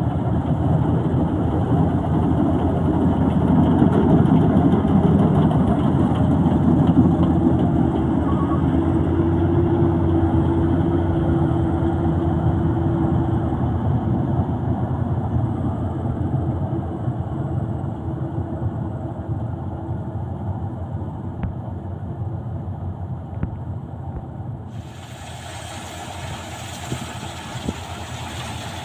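Combine harvester's diesel engine running steadily, growing gradually fainter through most of the stretch. Near the end the sound abruptly turns hissier.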